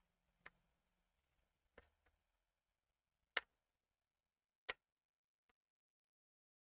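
Knitting needles clicking as stitches are worked: about five faint, sharp, separate clicks, a second or more apart, the loudest near the middle.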